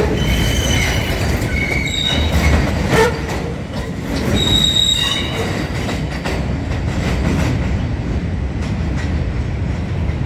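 NYC subway R68 train pulling away over track switches. The cars rumble steadily, with several short, high wheel squeals and a few sharp clacks over the rail joints in the first half. The squealing dies out after about five seconds as the train draws away.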